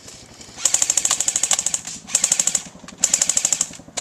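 Airsoft gun firing three rapid full-auto bursts: a long one of about a second, a short one, then one of just under a second.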